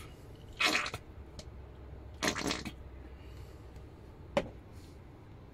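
Plastic squeeze bottle of ketchup squirting sauce onto food: two short spluttering squirts, then a single sharp click about four seconds in.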